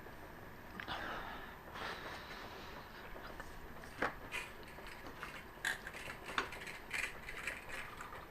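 Scattered metal clicks and clanks of workshop equipment being handled, a few sharper knocks among them.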